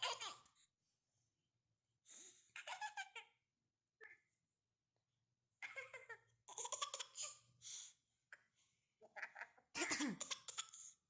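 Baby laughing and making playful imitation coughs in short bursts, with quiet pauses between them.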